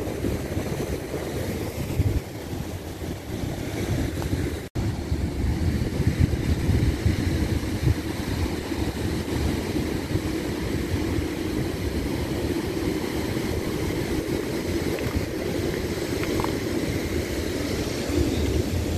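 Ocean surf washing over and around shoreline rocks, a steady low rumble, with wind buffeting the microphone.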